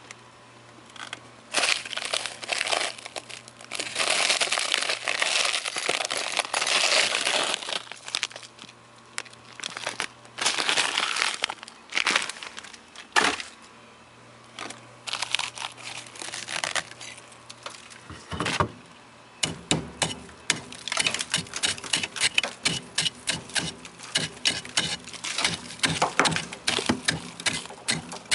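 A chisel scraping and chipping at thick ice packed inside a freezer, with the crunch of ice and plastic food bags being worked loose in irregular bursts. About two-thirds of the way in, it turns into a rapid run of sharp chipping strikes, several a second.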